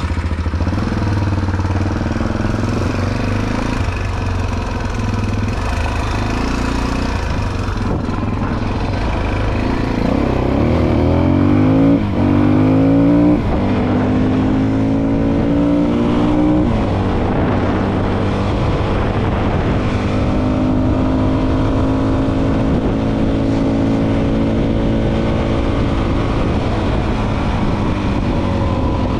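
Motorcycle engine running low at first, then revving up with rising pitch and shifting up twice, about twelve and seventeen seconds in, before settling into a steady cruise.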